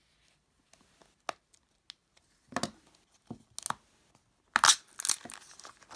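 Plastic wrapping of a gashapon crystal being handled and torn open: a few light clicks, then short crinkling rips, the loudest about four and a half seconds in.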